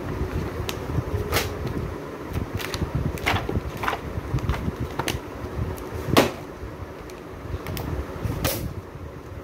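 Picture-book pages being flipped and books shifted in a cardboard box: a string of short paper flicks and knocks, the loudest about six seconds in, over a steady low hum.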